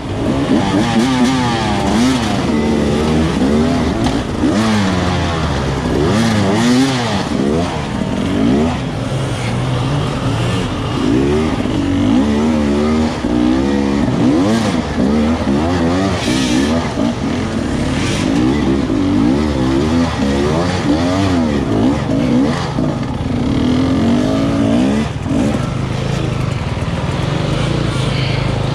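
Dirt bike engines revving up and down in short, repeated throttle bursts as the bikes claw over rocks, the pitch rising and falling every second or two.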